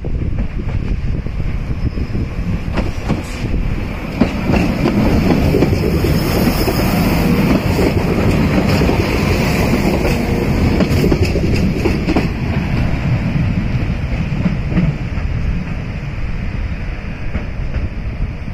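Diesel multiple unit passenger train passing close by: a steady rumble of engine and wheels on the rails, with a few clicks from the wheels. It swells about four seconds in, stays loud through the middle and eases off slightly near the end.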